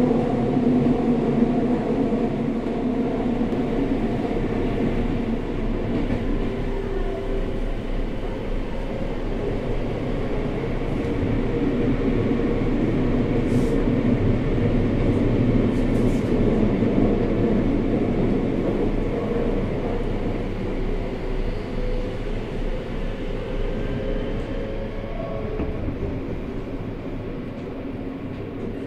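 Running noise inside a Seibu 6000 series car (aluminium-bodied 50 subseries, original Hitachi GTO-VVVF drive) under way: a steady rumble of wheels on rails with some steady tones under it. It grows a little quieter toward the end.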